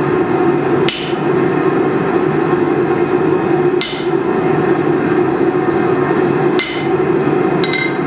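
Blacksmith's hammer striking the hot wrench on the anvil four times at uneven intervals: about a second in, near four seconds, and twice near the end, each blow ringing briefly. The forge runs steadily underneath with a continuous low roar.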